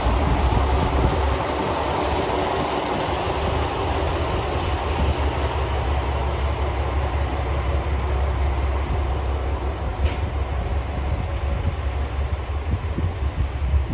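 Ibara Railway IRT355 diesel railcar running steadily as it moves off along the platform, with engine hum and wheel noise. The mid-range rumble thins out after the first few seconds as the car draws away.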